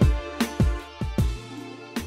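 Background music with a steady beat: deep drum hits about every half second to two-thirds of a second, with sharp clicks between them, over sustained chords.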